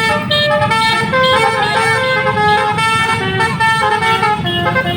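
Basuri telolet multi-tone bus horn playing a tune of held notes that step from pitch to pitch, over a low rumble.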